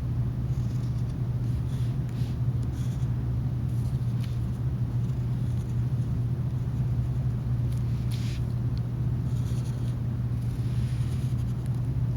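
A steady low hum runs throughout, with faint, scattered scratchy strokes of a thick black crayon drawing on paper.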